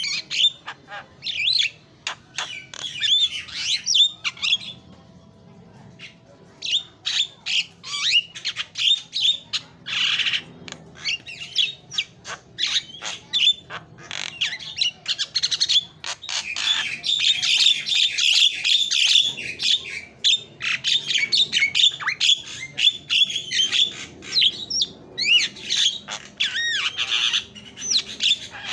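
Javan myna singing a fast, varied run of squawks, clicks and whistles, with a short pause about five seconds in.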